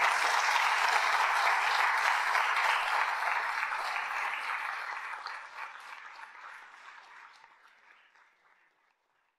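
Audience applauding, a dense patter of many hands clapping that fades away over the last few seconds.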